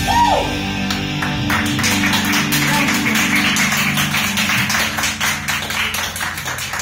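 A woman's sung closing note glides down and ends just after the start. The backing music plays on under audience applause that begins about a second and a half in.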